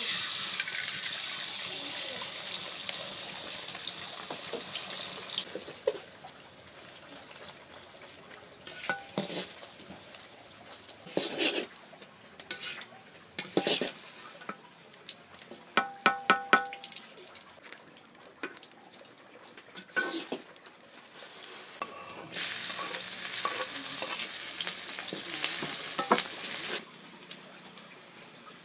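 Beaten egg poured into hot oil in a wok sizzles loudly for about five seconds. Then a metal slotted ladle scrapes and clinks against the wok, with a quick run of ringing taps in the middle. Near the end, sliced shallots and scallions go into the oil and sizzle for about four seconds before it drops off.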